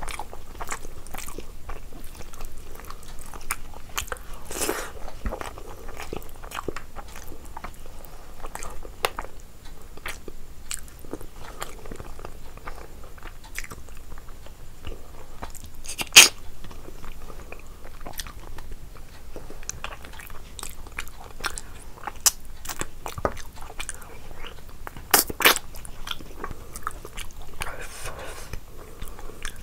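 Close-miked eating of rice and curry by hand: chewing, wet mouth sounds and crunchy bites, with a dense run of sharp clicks and a few louder crunches about halfway through and near the end.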